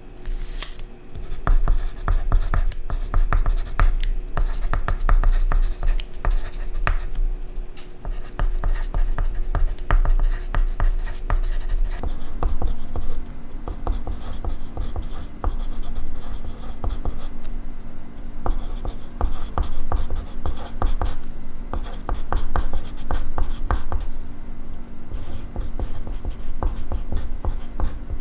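Pencil writing on paper: a continuous run of quick scratching strokes.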